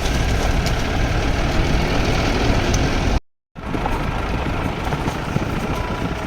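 Vehicle engine running with steady rumbling road noise. It drops out completely for a moment about halfway through.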